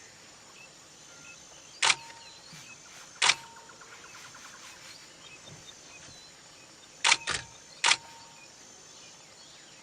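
Camera shutter clicks, five in all: one about two seconds in, another a second and a half later, then three close together near the end. They sound over a faint, steady outdoor background.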